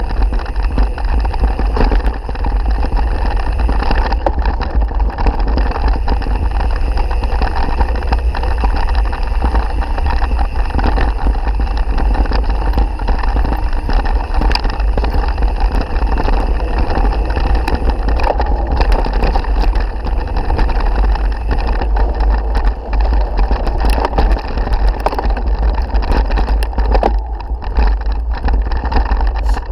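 Steady wind rumble on the microphone and the rattling and knocking of a mountain bike ridden over a bumpy dirt and grass trail, picked up by a camera mounted on the bike.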